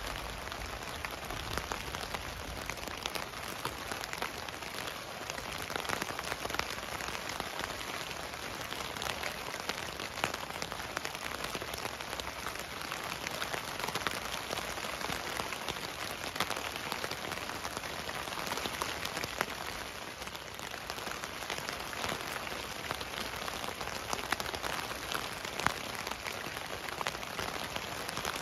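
Steady rain falling on a tent, heard from inside, with many individual drops ticking on the fabric.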